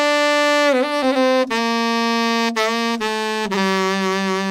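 Saxophone playing a slow phrase of held notes stepping downward. About a second in, one note dips in pitch and bends back up, and the phrase closes on a long, lower held note. The phrase is played ornamented with an up-bend and vibrato.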